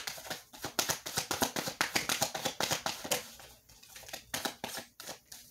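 A deck of tarot cards being shuffled by hand: a fast run of card clicks and flicks that thins out after about three seconds into a few separate taps.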